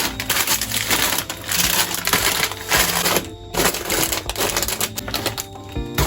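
Plastic packaging and storage containers being handled: crinkly rustling with a rapid, irregular run of clicks and light knocks.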